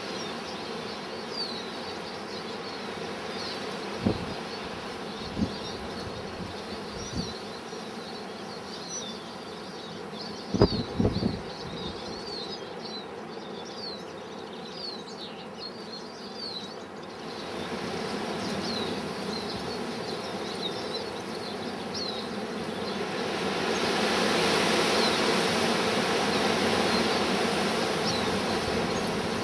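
Small finches calling, many short high chirps, over a steady rush of strong wind, with a few low thumps in the first half. About two-thirds through, the wind gusts louder and the chirps thin out.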